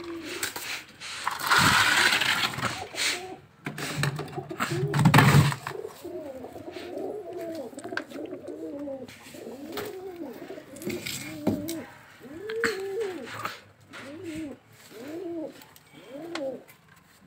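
Domestic pigeons cooing in the loft, a run of rising-and-falling coos about one a second through the last two-thirds. The first five seconds or so hold clattering, scraping and knocks as the wire-mesh loft door is opened.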